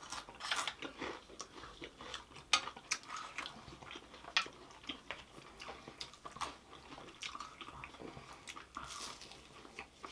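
Close-miked mukbang eating: irregular crunchy bites and chewing of crisp fried food, with sharp crackles scattered throughout.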